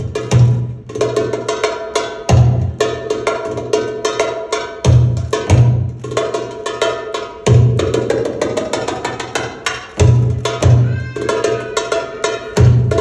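Darbuka (Egyptian tabla) solo: paired deep doum strokes come back about every two and a half seconds, with fast rolls of sharp tek and ka strokes filling the gaps.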